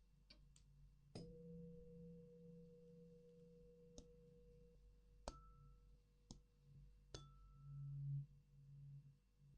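A tuning fork is struck about a second in and rings one steady, pure tone for a few seconds. Light taps come in between, and two of them give short, higher rings. A brief low swell comes near the end.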